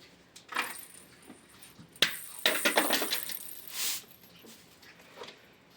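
A few light clicks, then a knock about two seconds in, followed by a quick run of small clinks and rattles and a short rush of noise: small hard objects being handled.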